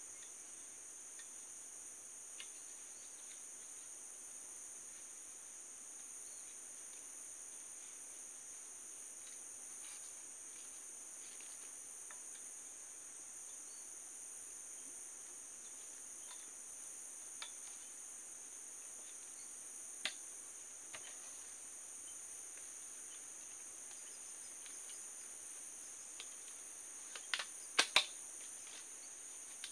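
Steady chorus of insects: a continuous high-pitched drone in two bands. A few small clicks are scattered through it, with a cluster of louder sharp knocks near the end.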